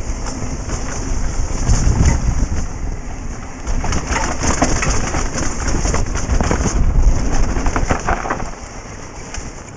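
Wind buffeting a helmet-mounted camera's microphone on a fast downhill mountain-bike descent, mixed with the steady crunch and rattle of the tyres and bike over a dry gravel trail. The rumble swells about two seconds in and again around seven seconds, then eases near the end.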